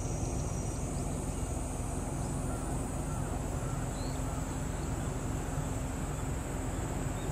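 Outdoor ambience: a steady rushing noise, heaviest and gusty in the low end like wind on the microphone, over a steady low hum, with a few short, faint bird chirps about a third of the way in and again near the end.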